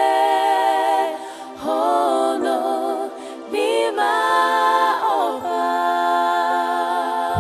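Unaccompanied singing of a hymn in long held notes, with two short breaks about a second and a half in and about three seconds in.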